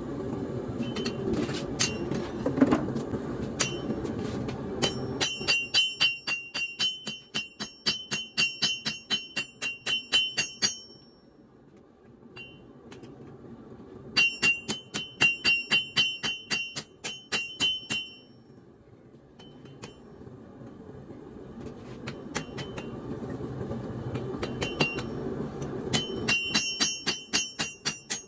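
Hand hammer striking hot leaf-spring steel on an anvil in runs of quick blows, about three a second, each with a bright ring. The hammering stops twice for a few seconds. A steady low rush runs underneath, louder near the start and end.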